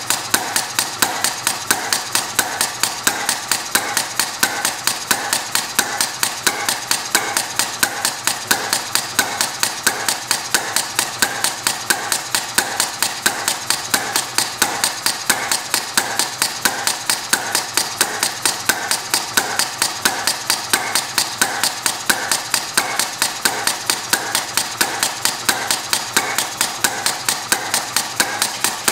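Small model compressed-air hit-and-miss engine running: an even, rapid mechanical clicking and tapping of its valve gear and governor latch, with about three sharp ticks a second. It is hitting more often than its builder would like.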